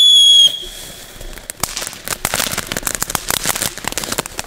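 Small firework fountain burning: a loud whistle sliding slowly down in pitch cuts off about half a second in, followed by dense crackling.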